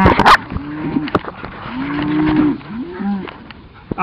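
Highland cattle mooing: several low calls that rise and fall, the longest lasting about a second. A few sharp knocks sound in between.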